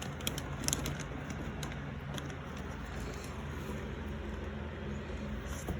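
A few light clicks and taps of plastic doll-playset pieces being handled, over a steady low background hum.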